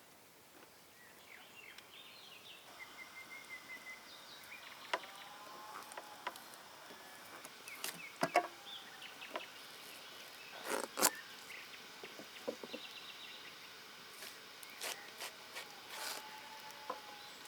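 Outdoor ambience with short bird-like chirps and whistles over a faint insect hum, broken by scattered sharp clicks and knocks, the loudest about eight and eleven seconds in.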